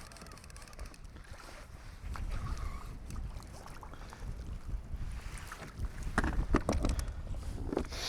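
Wind rumbling on the microphone on a sea kayak, with a few sharp knocks about six to seven seconds in.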